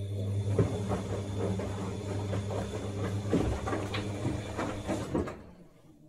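Siemens WD14H420 washer-dryer running with a steady low electrical hum, together with irregular clicks and knocks. The hum stops about five and a half seconds in.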